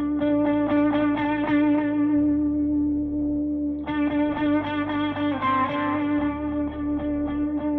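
Instrumental music: guitar played through effects, a quick repeating pattern of notes over a steady held drone note.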